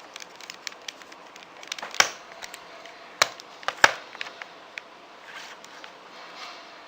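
Plastic 3x3 Rubik's Cube being turned by hand: a run of light clicks and clacks as the layers rotate, with three sharper clacks about two, three and four seconds in.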